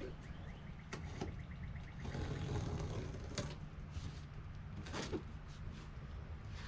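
Cardboard box being cut open and handled: scraping and several separate knocks, with a quick run of small clicks about two seconds in.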